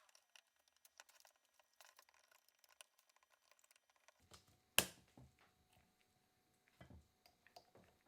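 Faint scattered clicks and light taps of small hard objects being handled, with one sharper click just before five seconds in.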